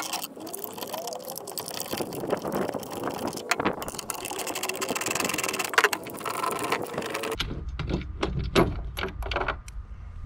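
Ratchet wrench with a 9/16 socket clicking as the bolts holding the seal plate to the pool pump motor are undone. About seven seconds in the sound changes abruptly to a few separate knocks and taps of metal parts being handled, over a low rumble.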